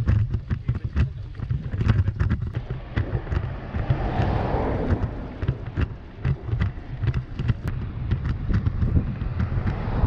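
Wind buffeting the microphone of a camera riding along on a road bike, with a heavy low rumble and scattered sharp knocks from road vibration. A brief rush of noise swells and fades about four seconds in.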